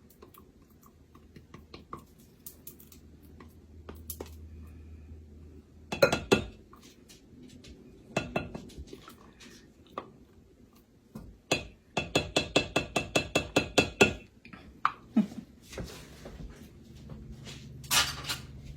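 A whisk beating pecan pie filling in a mixing bowl, clinking against the bowl: scattered clicks and knocks, then a fast, even run of strokes for a couple of seconds past the middle.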